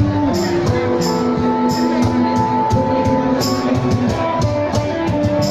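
Live band music from a drum-and-melody duo: a drum kit keeps a steady beat with cymbal strokes about twice a second under sustained melodic notes.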